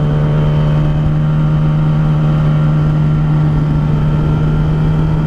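Yamaha sportbike engine running at a steady, unchanging engine speed while cruising, with wind noise rushing over the microphone.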